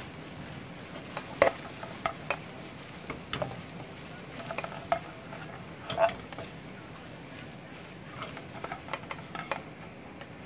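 Garlic fried rice with green onion being stirred in a frying pan: the utensil scrapes and knocks against the pan at irregular moments over a light sizzle, the pan just taken off the heat.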